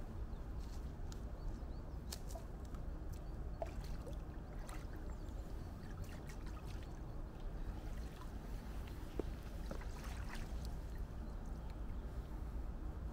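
Small splashes and sloshing of shallow lake water as a person wades in barefoot and dips his hands in, over a steady low rumble of wind on the microphone.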